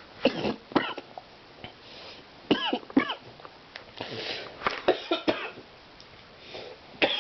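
A man coughing in his sleep, in a series of short, separate coughs spread over several seconds, some with a rasping, voiced edge.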